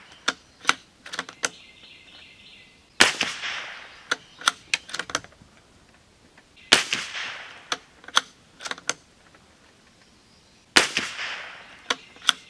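Springfield Armory Model 2020 Rimfire bolt-action .22 LR rifle fired three times, about four seconds apart, each shot a sharp crack with a short echoing tail. After each shot comes a quick run of metallic clicks as the bolt is worked to eject the case and chamber the next round.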